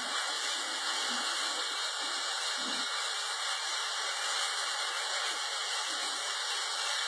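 Steady hiss of a propane jet fire burning from a stationary tank, mixed with the spray of fire hose streams played onto it.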